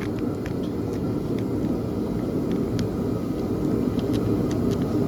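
Steady low roar of a running shop heater, with scattered light clicks on top.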